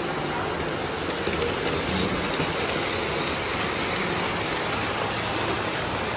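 O gauge model trains running on the layout's track: a steady noise of wheels on rail and train motors, with no sudden sounds.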